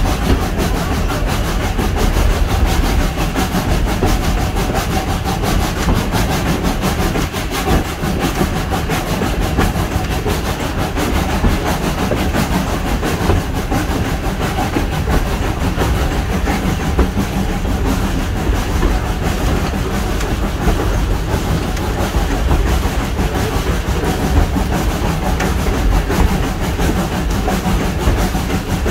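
Steady running noise of a train hauled by the 1927 SACM 040 T17 steam tank locomotive, heard from an open carriage just behind the engine: wheels clattering on the rails with a constant rumble.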